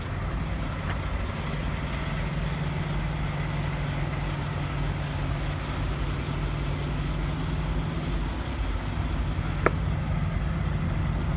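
Steady low engine rumble of an idling truck, with one sharp click near the end.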